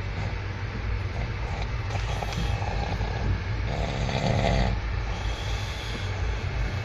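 A sleeping man snoring, with one louder snore of about a second roughly four seconds in, over the steady low rumble of a moving train carriage.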